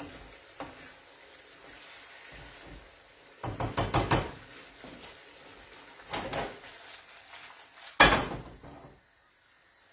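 Kitchen utensils knocking and clattering against dishes and the pan: a short burst of clatter about three and a half seconds in, another about six seconds in, and one sharp knock about eight seconds in, the loudest.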